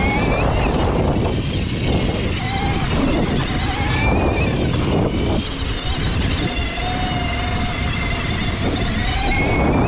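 Bafang BBS-HD mid-drive motor whining under power on a fat-tire e-bike in loose sand, its pitch wavering up and down with speed, over heavy wind rumble on the microphone.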